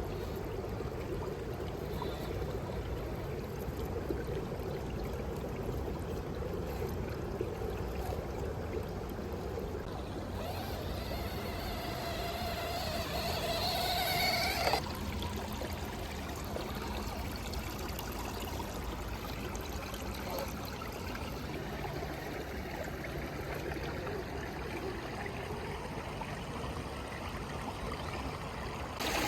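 Creek water running steadily. About ten seconds in, the small electric motor of a Traxxas TRX-4M Defender RC crawler whines for about four seconds, rising slightly in pitch, then cuts off suddenly.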